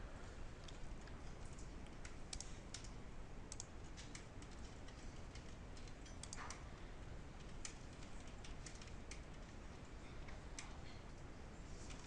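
Scattered keystrokes on a computer keyboard, a key or two at a time at irregular intervals, over a steady faint hiss.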